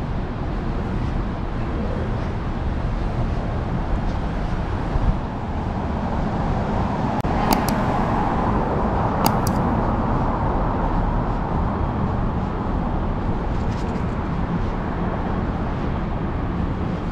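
Downtown street traffic, with a steady background of road noise and a vehicle passing close by around the middle. Two sharp clicks come during the pass.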